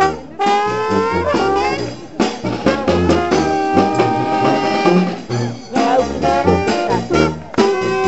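Small street brass band playing live: trombone, saxophone and helicon bass over a snare drum beat. The horns play a run of rising slides in the first couple of seconds.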